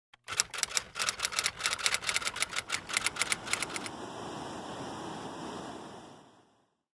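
Typewriter keys clacking in a quick run, about seven strikes a second, for roughly the first four seconds. A steady hiss follows and fades out a little after six seconds.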